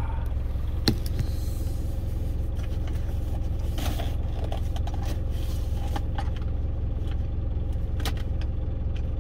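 Parked truck's engine idling steadily, heard inside the cab as a low hum, with a sharp click about a second in and a few lighter knocks.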